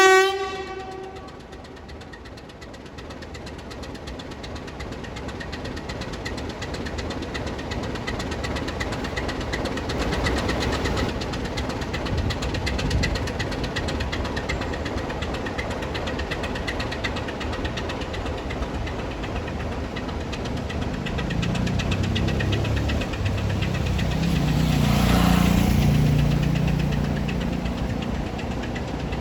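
A heritage diesel locomotive's engine running, slowly building and getting loudest about three-quarters of the way through before easing off. It opens with the last moment of a horn blast.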